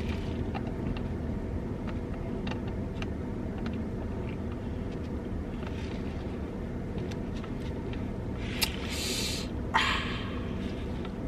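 Steady low hum of a car idling, heard from inside the cabin, with faint scattered clicks from eating. Near the end a brief louder rustle and a sharp click stand out.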